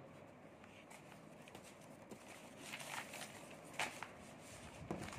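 Sheets of paper being handled and slid across a wooden desk: a few faint rustles and soft taps in the second half.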